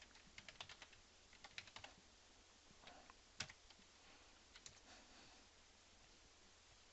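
Faint computer keyboard typing: short runs of quick key clicks in the first two seconds, then a few scattered key or mouse clicks.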